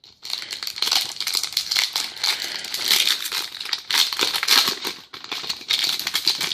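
Crinkling and crumpling of a trading-card pack wrapper being handled in the hands, a dense crackle with small lulls.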